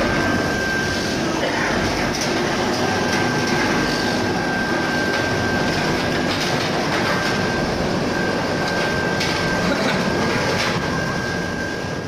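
Stainless-steel crayfish washing and blanching machine running steadily, its conveyor and rollers carrying crayfish through. A constant high-pitched whine runs over the machine noise.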